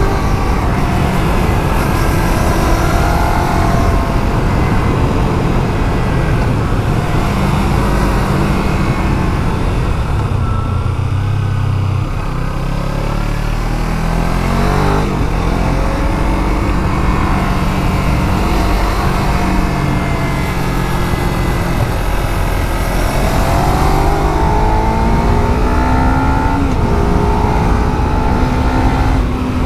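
Kawasaki Z300's parallel-twin engine with its stock exhaust, heard from on the bike while riding: revs climbing and falling through gear changes. It eases off about ten seconds in, then pulls again and climbs near the end.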